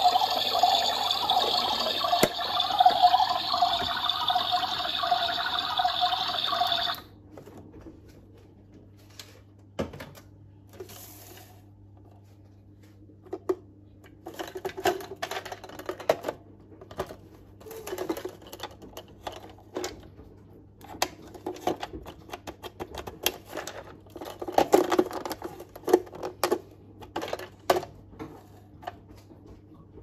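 Pink battery-powered toy washing machine running steadily, its small motor spinning the drum, until it cuts off suddenly about seven seconds in. After that come scattered clicks and knocks of hard plastic being handled.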